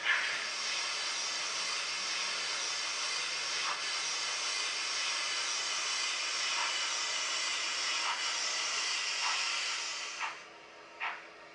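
Recorded steam hiss from a DCC sound decoder in a model steam locomotive, steady for about ten seconds with a few faint chuffs beneath it, then cutting off sharply. Slow, evenly spaced exhaust chuffs follow near the end.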